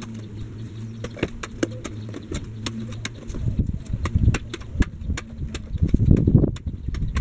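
Long-handled narrow fencing spade being driven down into soil to dig a post hole, giving dull thuds in the second half, heaviest about four and six seconds in. A pigeon coos steadily in the first few seconds.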